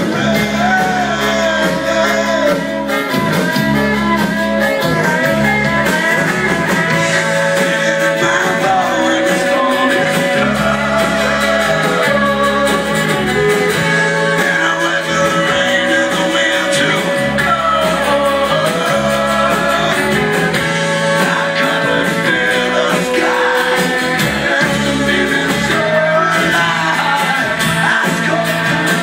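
Live folk-rock band playing a song: a man singing over strummed acoustic guitar, upright double bass and fiddle.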